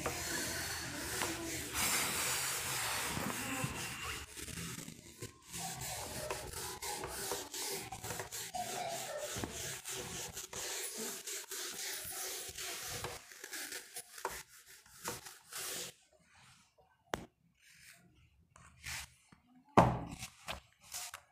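Continuous scratching and rubbing of handwriting, with many short strokes, for most of the time; it stops about three quarters of the way through, leaving a few light taps and one louder thump near the end.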